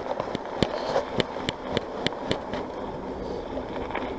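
Mountain bike rolling on a wet trail: a run of about eight sharp ticks, three to four a second, over a steady rushing noise; the ticks stop about two and a half seconds in.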